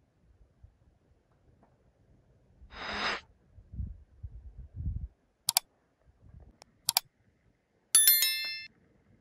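A short rustle, a few soft thumps and two sharp clicks, then a brief bright metallic ring like a small bell that fades within about half a second, near the end.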